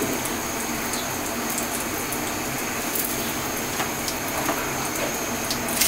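Cumin seeds and a bay leaf sizzling in hot oil in a steel karahi: a steady hiss, with a few light taps and scrapes of a spatula against the pan.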